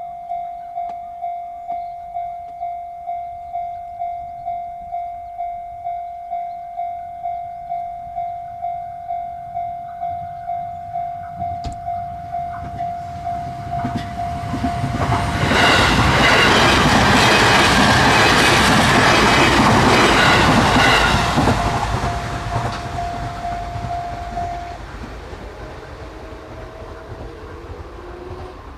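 Japanese railroad crossing warning bell ringing steadily, about one and a half strikes a second. About halfway through, an Itsukaichi Line electric train passes over the crossing, loud enough to drown out the bell, then fades away. The bell stops near the end.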